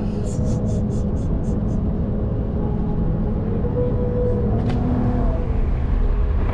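Car cabin road noise while driving: a steady low rumble of tyres and engine. A quick run of light ticks sounds in the first couple of seconds.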